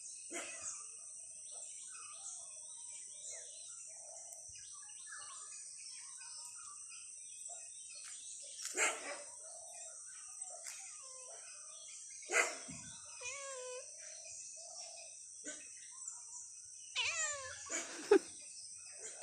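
Dogs barking in the neighbourhood, two louder barks about nine and twelve seconds in, over a steady high-pitched hiss and scattered bird chirps. Near the end comes a short run of rising pitched calls, likely a cat meowing.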